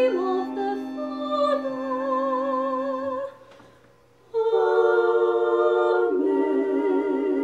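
Small vocal ensemble singing long held notes in close harmony with vibrato. The voices break off about three seconds in for a second's pause, then come in together on a new sustained chord that moves to new notes about six seconds in.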